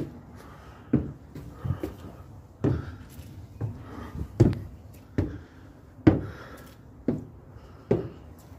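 Footsteps knocking on wooden stairs and floorboards, about one step a second.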